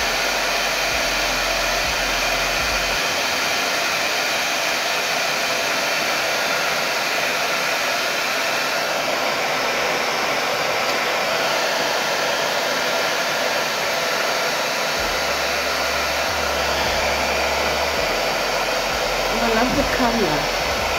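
Essentials handheld hairdryer running steadily, blowing air onto hair as it is brushed through.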